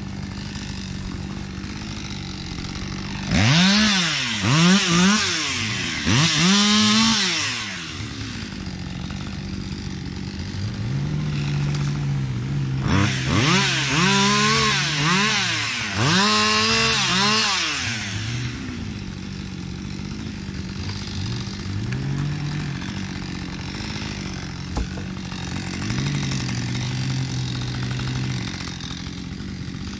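Chainsaw idling steadily and revving up and down in bursts while cutting branches off a felled birch. Two long spells of high revving come about 3 and 13 seconds in, with shorter revs later.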